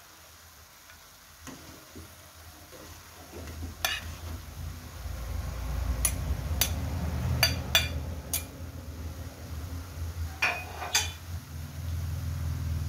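Kitchen utensils clinking and scraping against a wok while rice noodles are tossed with pork and shredded vegetables, with about eight sharp clinks from about four seconds in. A low rumble runs underneath from about five seconds in.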